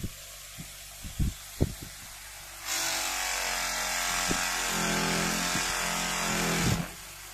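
Bench grinder running with a steady hum and a few sharp knocks. About two and a half seconds in, a steel blade is pressed to the spinning wheel and a loud grinding hiss runs for about four seconds, then cuts off near the end as the blade comes away.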